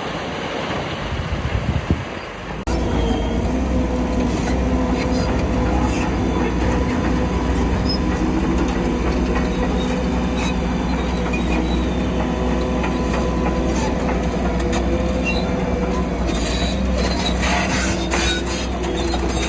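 Crawler bulldozer working: diesel engine running under a steady squealing and clanking from its steel tracks, which comes in suddenly about three seconds in.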